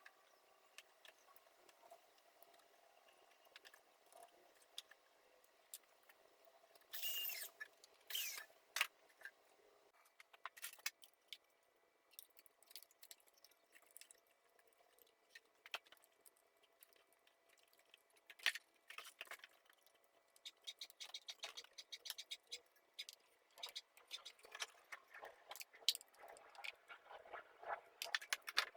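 Scattered clicks and scrapes of the bird feeder's parts being handled and worked apart, with a louder run of scraping about seven to nine seconds in and quicker clicking near the end.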